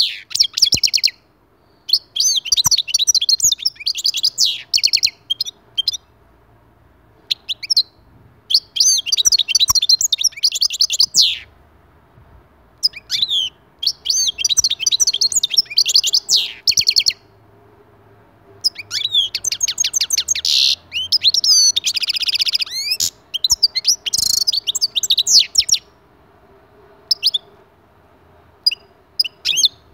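European goldfinch singing: phrases of rapid, liquid twittering and trills a few seconds long, broken by short pauses, with a buzzy stretch a little past the middle.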